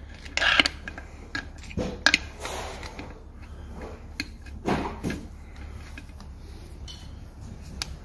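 Scattered light metallic clicks and clinks of engine case cover bolts being started by hand with a small driver on a Honda GL1500 Gold Wing engine.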